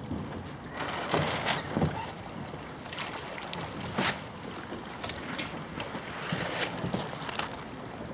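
Outdoor wind noise on the microphone, with a series of short crackling bursts scattered through it.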